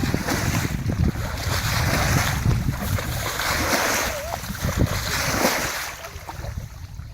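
Wind buffeting the microphone over a rushing, splashing water noise that swells and fades, dying down shortly before the end.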